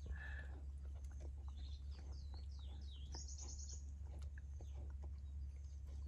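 Birds chirping in the background: short calls, a run of descending whistled notes about halfway through and a fast high trill just after, over a steady low hum.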